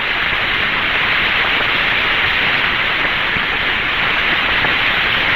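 Steady hiss of HF radio static on an open channel, even and unbroken, strongest in the upper-middle range.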